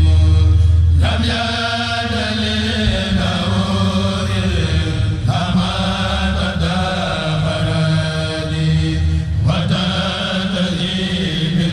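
A Mouride kourel group chanting a khassida (Arabic religious poem) in sustained, drawn-out phrases, with a new phrase beginning about every four seconds.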